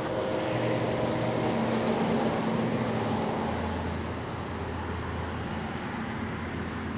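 Diesel freight locomotives approaching from a distance, led by a GE AC4400CW: a steady engine rumble with a low drone that drops a little in pitch about three seconds in.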